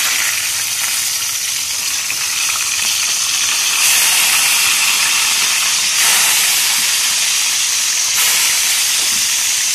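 Pieces of tulingan (bullet tuna) frying in hot oil in a pan: a loud, steady sizzle that grows louder in steps three times.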